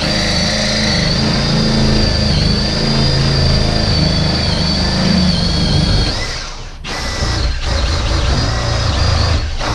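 Power drill running steadily under load, its pitch wavering a little as it bores a hole down through the floor for the tub's drain. It drops out briefly about six and a half seconds in, then runs again.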